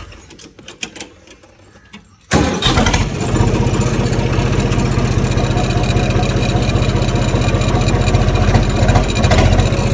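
Tractor diesel engine starting suddenly about two seconds in, after a few faint clicks, then running steadily with a rapid, even pulse.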